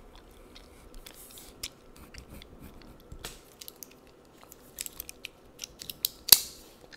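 Close-miked ink pen scratching on the paper of a word-search book as a word is circled, with scattered sharp clicks and one louder crackle about six seconds in.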